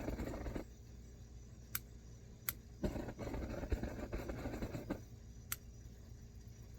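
Hands working on a metal camp stove: three sharp metallic clicks and two stretches of scraping noise, one just at the start and one from about three to five seconds in.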